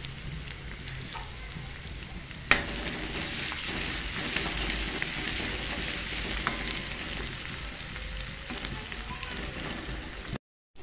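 Chopped onion and garlic-ginger paste sizzling in hot oil in a kadhai as a ladle stirs it. A single sharp knock comes about two and a half seconds in, after which the sizzling is louder. The sound cuts out briefly near the end.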